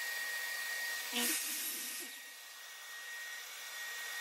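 A steady blowing hum with a faint high whine, and a brief clunk about a second in.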